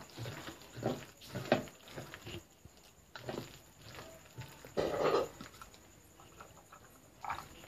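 A hand mixing thick ground urad dal batter with chopped onions in a steel bowl: soft, irregular wet squelches, the strongest about five seconds in.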